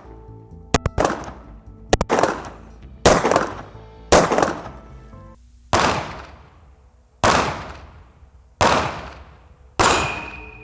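9mm pistol fired repeatedly at a wooden wall: about eight shots, roughly a second apart with one longer pause midway, each a sharp crack that trails off in echo, with a few short snaps of rounds striking early on.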